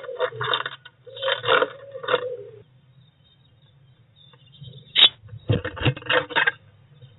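A pigeon cooing outside the nest box. About five seconds in this gives way to a sharp tap, then a run of clicks and scratches: a small bird's claws gripping the wooden box at its entrance hole.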